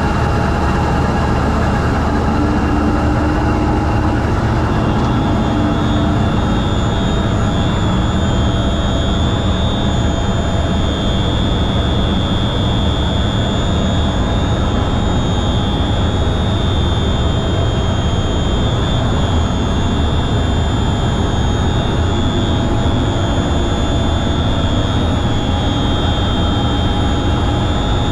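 Loud, steady drone of the CRRC Ziyang SDA1 locomotive's running 20-cylinder MTU 20V4000 diesel prime mover, heard from inside the engine compartment. A high, steady whine joins about five seconds in and holds on.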